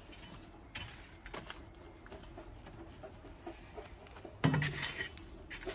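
Metal shovel scraping and knocking through ash, embers and gravel around the base of a tin, with scattered sharp clicks and a louder short noise about four and a half seconds in.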